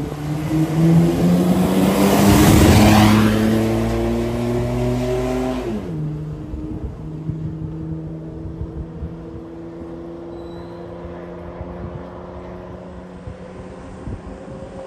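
Second-generation Mitsubishi Montero engine under hard acceleration, pulling cleanly with no misfire, its pitch climbing steadily. It is loudest with a rush of noise as it goes by about two to three seconds in. Near six seconds the pitch drops sharply at an upshift, then climbs slowly again as the sound fades away.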